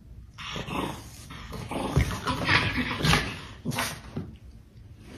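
Dogs vocalising while they play-fight: a run of short, noisy, irregular calls lasting about four seconds, loudest in the middle.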